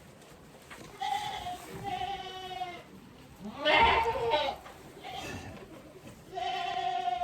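Goat bleating again and again, about five calls with pauses between them; the loudest and harshest call comes near the middle.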